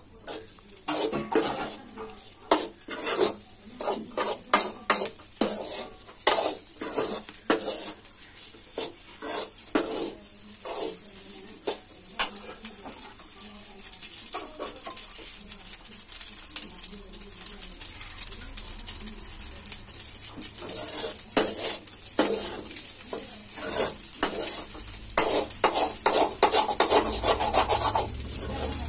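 A perforated steel ladle scraping and knocking against a metal kadai as a dry, crumbly fry is stirred, over a steady frying sizzle. The strokes come in quick runs, with a quieter pause of several seconds in the middle.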